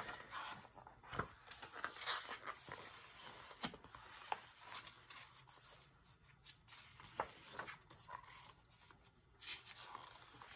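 Pages of a hardcover picture book being turned and handled: faint paper rustles with scattered soft clicks and taps from the cover and pages.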